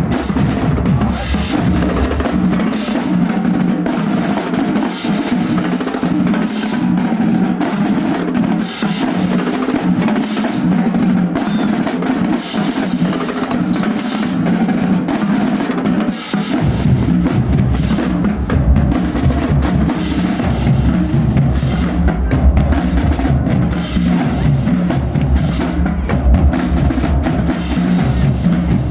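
Marching band drumline playing a cadence: rapid, steady snare strikes over bass drums. The deep bass drops out about three seconds in and comes back in a little past halfway.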